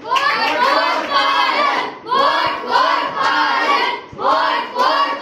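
A group of schoolchildren's voices chanting loudly in unison, in three phrases with short breaks between them.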